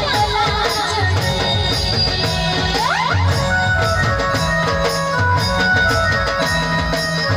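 Live Jhumar folk music from a stage band: a keyboard melody over a steady drum beat, with a rising slide about three seconds in.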